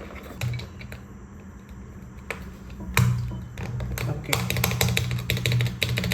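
Plastic keycaps being pressed down onto the switches of a mechanical keyboard: a couple of single clicks, then a quick run of clicks in the second half, over a low steady hum.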